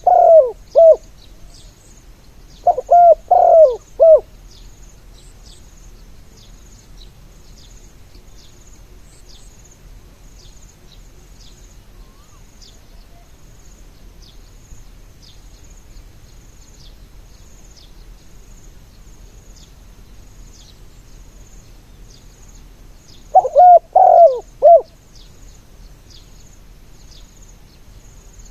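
Spotted dove cooing its song: three short phrases of several coos each, one at the start, one about three seconds in and one about twenty-three seconds in, with a long pause between. Faint insect chirping carries on throughout.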